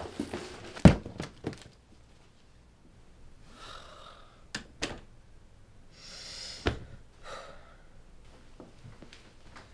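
Rustling and a sharp thump about a second in as a backpack is grabbed and swung. Then a quiet room with a couple of small clicks, a soft thud and breathy sighs.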